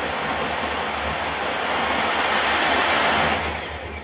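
Oraimo S3 cordless stick vacuum cleaner running with a steady rush of air and a high motor whine. About two seconds in the whine rises in pitch and the sound gets louder, as the power is stepped up. Near the end it dies down.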